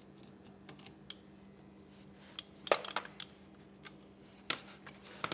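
Ratchet and socket extension clicking and clinking against metal while the axle drain plug is worked loose, a few sharp irregular clicks with a quick cluster a little before the middle, the loudest of them there.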